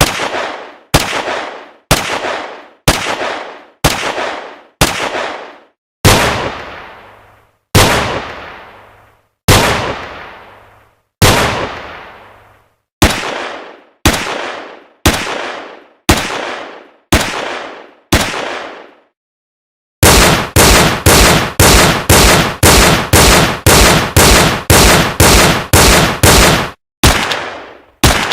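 Gunshot sound effects: single shots about one a second, several with long echoing tails, then after a brief pause about seven seconds of rapid automatic fire, then single shots again.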